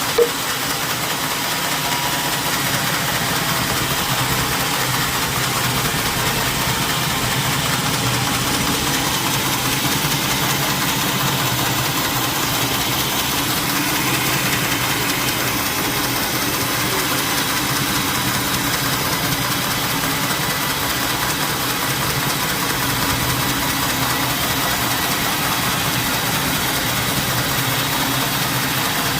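Sawmill machinery engine running steadily at an even pitch, with one short knock just after the start.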